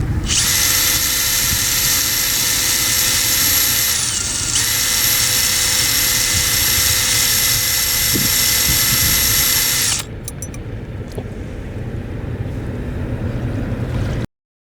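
Power drill spinning a Digma screw-in tent peg, a loud, steady high-pitched motor whine. The whine sags briefly and picks straight back up, then stops about ten seconds in, leaving quieter background noise with a few clicks.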